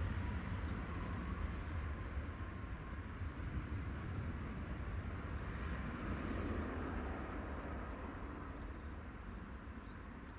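Aircraft engine noise: a steady low rumble and rush that slowly fades.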